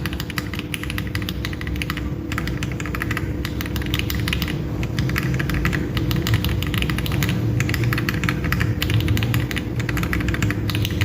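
Mechanical keyboard keys fitted with franken switches built from Akko Jelly Blue and Jelly White parts, typed on rapidly in a dense run of clicks with a few brief pauses. The sound is clacky.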